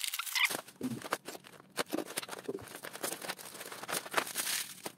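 Plastic packaging rustling and crinkling in irregular crackles as a black plastic courier bag is torn open by hand and clear plastic product packets are pulled out and handled.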